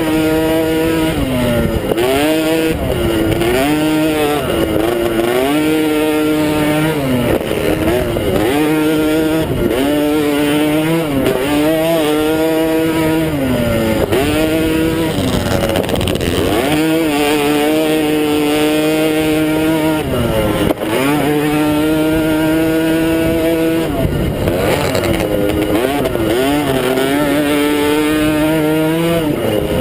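Apex 90cc mini quad engine revving up and down over and over as the throttle is opened and closed around a dirt race track, its pitch climbing and falling every second or two.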